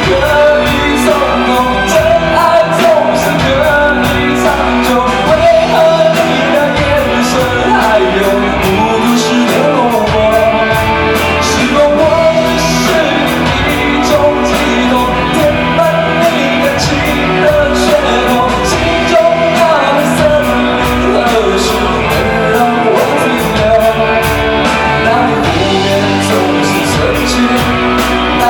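Live rock band playing a song with a lead singer: vocals over electric guitar, bass and drums, with steady cymbal strokes.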